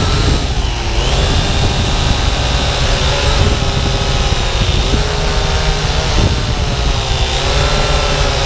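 Syma X8W quadcopter's electric motors and propellers whining in flight over a heavy rumble of rushing air. The pitch dips and climbs back about a second in and again near the end as the throttle changes.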